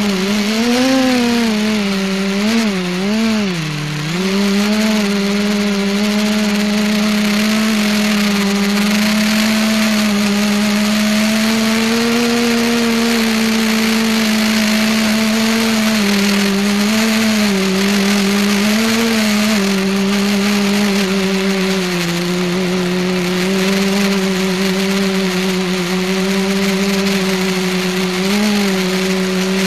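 Electric motors and propellers of an ETFD2 flying-disc multicopter, recorded from the camera riding on the craft: a loud steady buzzing hum. Its pitch wavers and dips a few times in the first four seconds and once near the end as the throttle changes.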